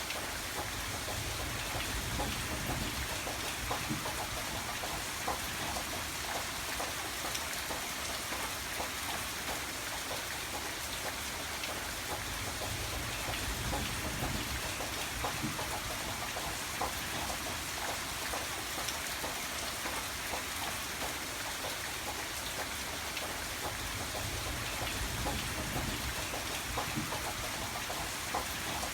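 Steady rain falling, with many separate drops hitting a surface. A low rumble swells and fades a few times underneath.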